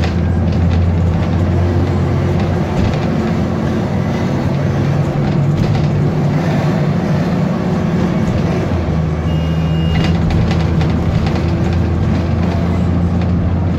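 Alexander Dennis Enviro 400 double-decker bus's diesel engine and drivetrain running under way, heard from inside the bus as it drives along. It is a steady, loud low drone whose note shifts in pitch a couple of times, with a brief faint high beep about two-thirds of the way through.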